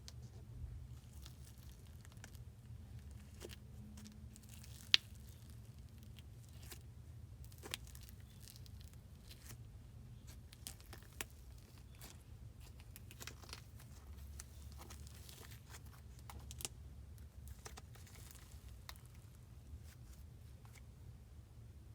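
Faint handling noises from slime making: soft crinkling and rustling with scattered small clicks, one sharper click about five seconds in, over a low steady hum.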